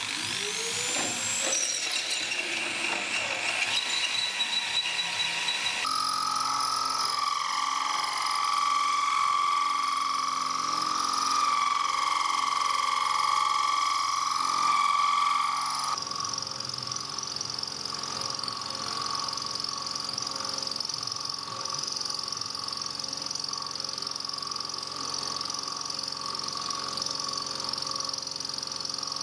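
Milling machine spindle drilling a metal plate with a twist drill, its whine rising in pitch in the first couple of seconds and then holding steady. About six seconds in the sound changes abruptly to a steady pitched whine as a cutter in the spindle enlarges the hole. It changes again about sixteen seconds in to a steady, higher cutting whine.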